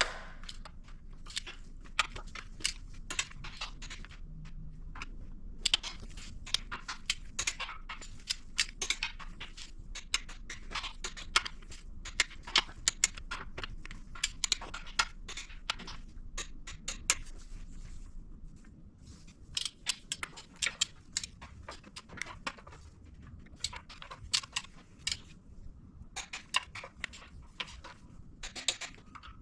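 Ratcheting torque wrench clicking in runs of quick clicks as the flywheel housing bolts are run down and torqued, with short pauses between bolts.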